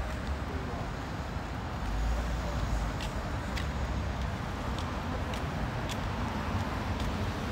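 City street ambience: steady traffic noise with a low rumble that swells about two seconds in. In the second half come light, regular ticks about every 0.6 s, like footsteps on paving.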